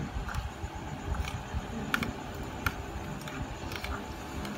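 Metal spoon clinking against a small ceramic bowl while stirring a thick dipping sauce: a handful of light, irregular clinks over a low steady background rumble.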